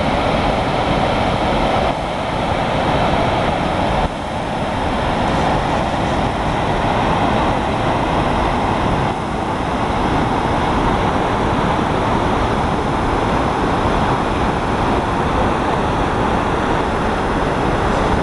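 Steady roar of a large waterfall, Kinuseo Falls, pouring into its plunge pool: an even, unbroken rush of falling water.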